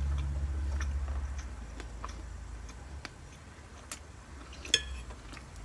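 Eating sounds: scattered small clicks of cutlery, with one louder ringing clink of a fork against a plate about three-quarters of the way through, over a low steady hum.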